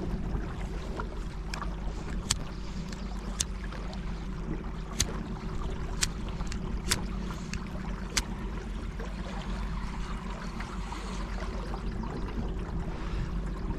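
Kayak on the river with water splashing and sharp knocks about once a second, over a steady low hum.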